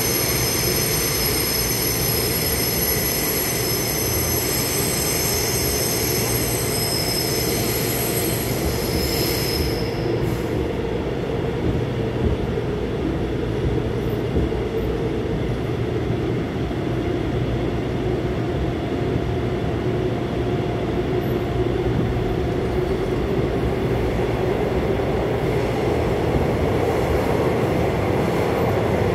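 Busan Metro Line 1 thyristor-chopper subway car running, heard from inside the car: a steady rumble of wheels on the track. Over it a high-pitched whine, typical of the chopper under power, stops suddenly about ten seconds in, leaving the running rumble alone.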